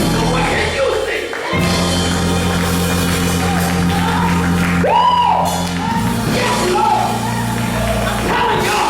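Gospel music with singing, over sustained low chords that change about a second and a half in and again about six seconds in.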